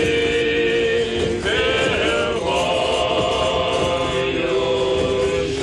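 Male choir singing slow Russian Orthodox chant in long held chords, changing chord a few times.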